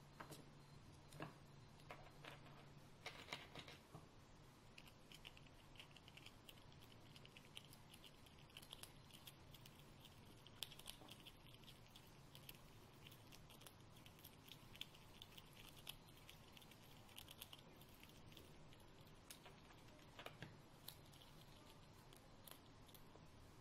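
A Eurasian red squirrel gnawing and chewing a walnut piece held in its paws: a faint, quick run of tiny crunching clicks, with a few sharper taps in the first few seconds.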